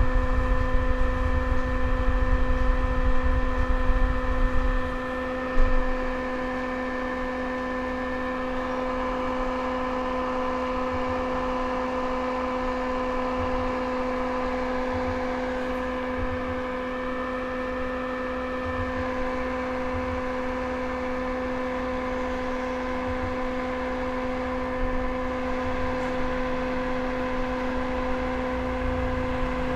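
Steady hum and whir of a small electric blower motor, holding one even pitch throughout, with a low wind-like rumble in the first five seconds and a single knock soon after.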